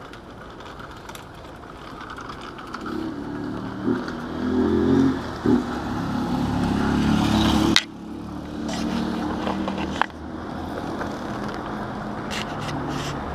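A motor vehicle's engine grows steadily louder as it comes closer, then cuts off abruptly about eight seconds in. A fainter steady rumble follows.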